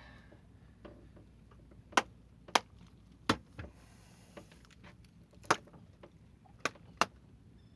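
A caught fish being dispatched with sharp blows to the head: about six hard knocks at uneven intervals, the first about two seconds in and the last two in quick succession near the end.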